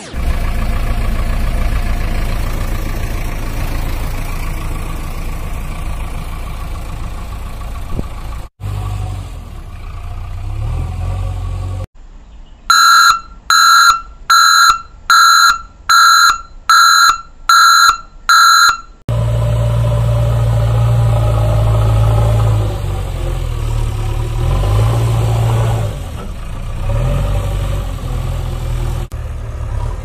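Heavy vehicle engine sound effect running with a steady low rumble, broken near the middle by about eight loud, evenly spaced beeps like a reversing alarm.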